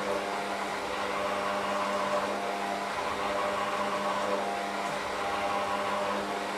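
Electric hand mixer running at a steady speed, its beaters working a thick dough in a metal bowl: an even motor hum.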